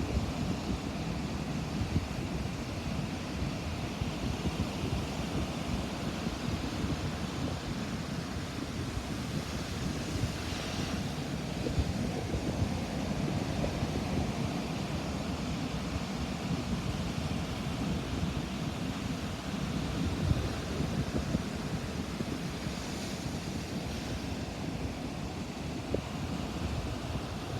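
Ocean surf washing onto a beach, a steady rush with wind buffeting the microphone. The hiss of a breaking wave swells twice, about ten seconds in and again a few seconds before the end.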